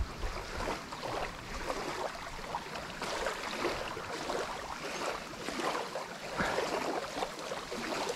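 Small waves lapping and sloshing against a gravel lakeshore, in irregular soft splashes.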